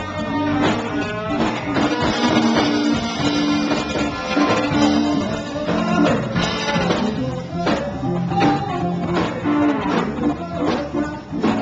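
Live blues-rock band playing: electric guitars over bass and a drum kit with cymbals, heard loud from the stage.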